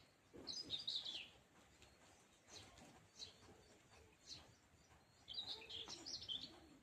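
Small birds chirping: two quick bursts of high twittering calls, about a second in and again near the end, with a few single chirps in between, over quiet rural background.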